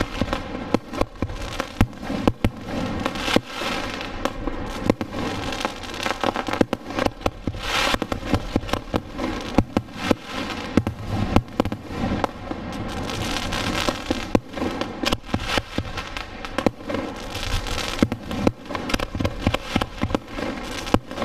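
Aerial fireworks display: shells launching and bursting in quick succession, with many sharp bangs a second over a continuous rumble and crackle.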